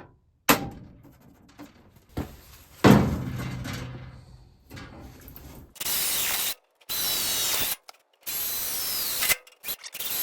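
Two hammer blows on a center punch marking holes in the car's sheet-metal fender, the second ringing on. Then an electric drill runs in four short bursts, about a second each, its pitch gliding as it bites into the metal.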